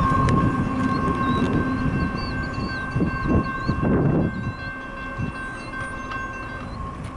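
Intermodal freight train rumbling away into the distance, fading out, with a steady high whine running over the rumble. Birds chirp faintly above it.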